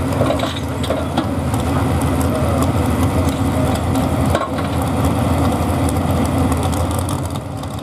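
Modified 4x4 pulling truck's engine idling steadily at the end of its pull, loud and low-pitched.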